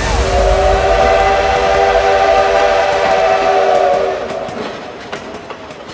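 Train whistle sound effect: a chord of several steady tones held for about four seconds, then fading away.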